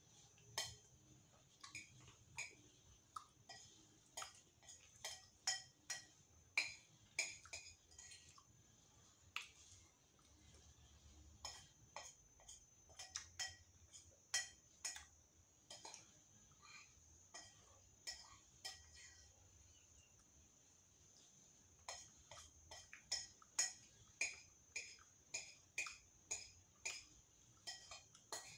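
Faint eating sounds: a spoon tapping and scraping on a dish, with chewing, heard as irregular runs of short clicks. There are brief lulls about ten seconds in and again around twenty seconds.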